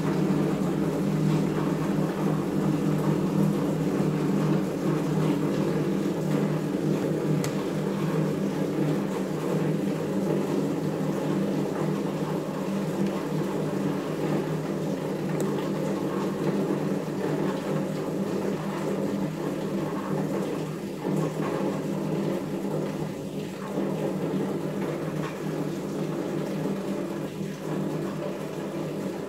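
A steady low hum, with a few faint clicks from the plastic frame and parts of a phone being handled and fitted together.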